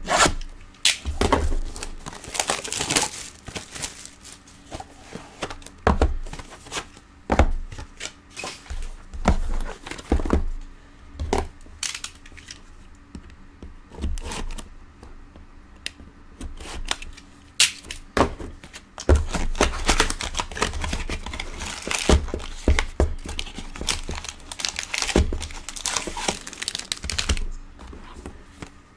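Plastic wrapping on a 2019 Topps Triple Threads trading-card box torn and crinkled as the box is opened. Its packs are handled, with scattered light knocks of cardboard on the table.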